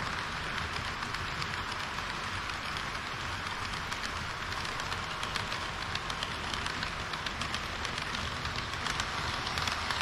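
HO gauge model trains running on sectional track: a steady rolling whirr of metal wheels on rail, with rapid small clicks from wheels crossing rail joints that grow denser about halfway through as a KiHa 40 series railcar model passes close by.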